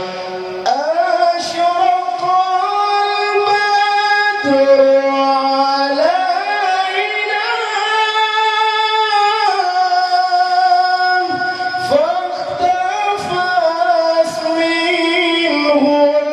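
A man singing a sholawat in a high register into a microphone, unaccompanied. He holds long notes and ornaments them with gliding, melismatic turns, stepping up and down between sustained pitches in a Middle Eastern style.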